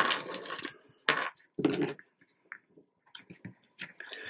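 Scissors snipping the ends of a ribbon: a few short, crisp cuts and clicks of the metal blades in the first two seconds, then a few light clicks near the end.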